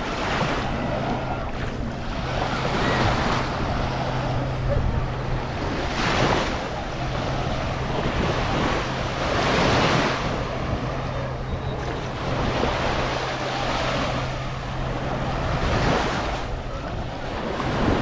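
Small waves washing onto a sandy shore, swelling and falling back about every three seconds, with wind on the microphone. A steady low hum runs underneath and stops near the end.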